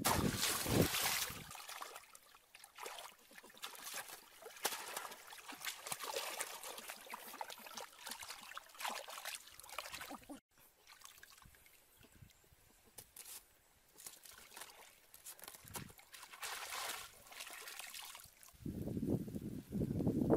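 Shallow pond water splashing and trickling as a bamboo plunge-basket fish trap is worked through it by hand, the splashes coming and going. Near the end a duller, lower-pitched noise takes over.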